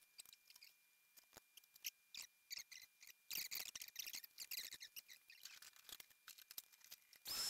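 Faint, scattered clicks and light metallic rattles of the parts of a jukebox record changer being handled and lifted off. Near the end a vacuum cleaner switches on with a steady hiss and a high whine.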